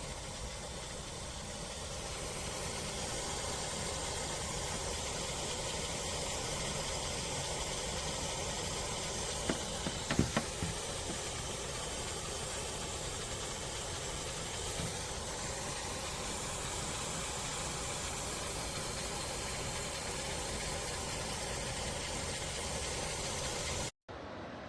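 Costway 14000 BTU portable air conditioner running, a steady rushing hiss from its fan, with a couple of small knocks about ten seconds in.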